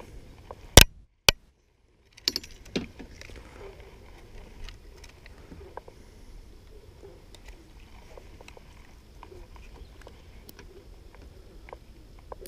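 Handling noise as a largemouth bass is weighed on a hand-held fish scale over a kayak: two loud sharp clicks about a second in, a moment of dead silence, then a few more knocks and scattered light clicks and rattles.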